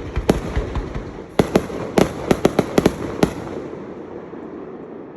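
Aerial fireworks shells bursting in a rapid string of sharp bangs, about ten in the first three and a half seconds and most tightly bunched around two to three seconds in. A rolling rumble then fades away.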